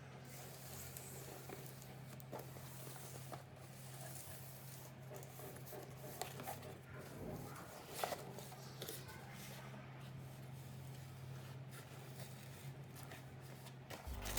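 Faint scattered clicks, taps and rustles of objects being handled, over a steady low electrical hum.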